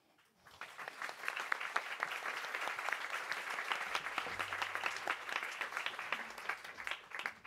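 Audience applauding, the clapping building up over the first second and dying away just before the end.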